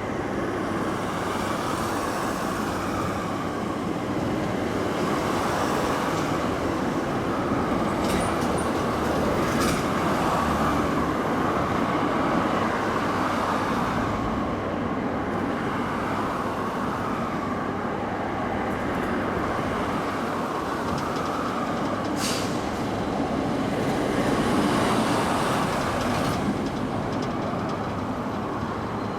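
Freight train hauled by an EF66 electric locomotive rolling past, a steady noise of wheels on rail with a few sharp clicks from the rail joints.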